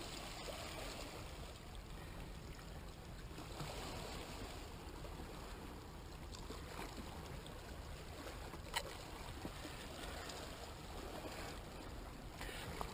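Steady, quiet wash of the sea on the rocks, with a single sharp click about nine seconds in.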